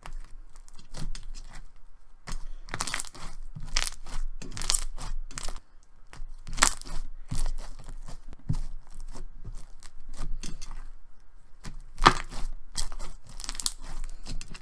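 Thick, glossy slime being squeezed and stretched by hand, giving irregular clusters of sticky clicks and crackling pops, the loudest about twelve seconds in.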